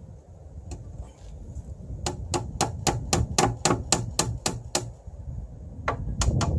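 A hammer striking wood during shop work. One blow comes first, then about eleven quick, even strikes at roughly four a second, then three more blows near the end.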